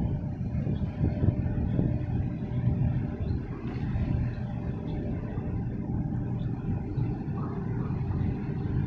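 Wind buffeting the microphone as a low, uneven rumble. Under it runs a faint steady engine hum from the tug and container ship passing offshore.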